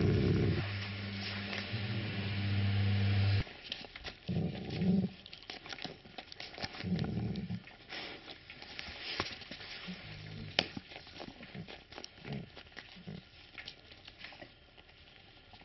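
Tibetan mastiff growling low: one long growl that stops suddenly about three and a half seconds in, then several short low growls.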